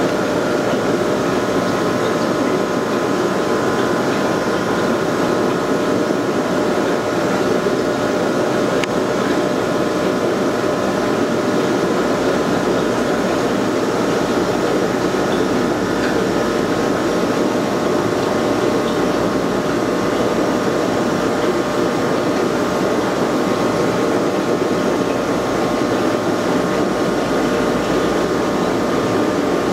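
Aquarium filter pumps running steadily: a constant noisy hum of motor and moving water, with a few faint steady whining tones over it.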